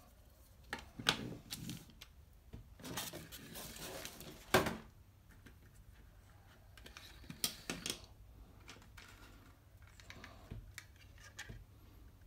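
Scattered small plastic clicks, taps and rustling from handling a toy RC helicopter's parts and plastic packaging. A busier run of rustling about a third of the way in ends in a sharp click.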